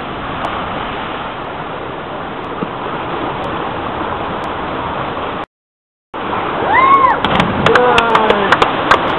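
Steady rush of seawater sloshing against the rocks of a small cove. After a brief break about two-thirds through, louder water with people's voices, a shout that rises and falls, and a quick run of sharp clicks.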